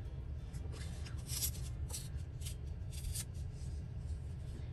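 Paper scraps rustling as they are handled and laid down, in several short swishes over a steady low hum.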